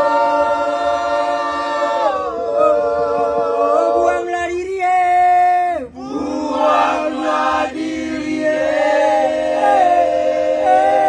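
A group of men singing together unaccompanied, holding long notes and sliding between them, with a short break about six seconds in.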